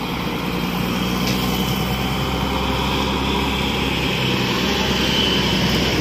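Engine of a passing bus, a steady low rumble that grows louder as it comes close, with a motorcycle going by.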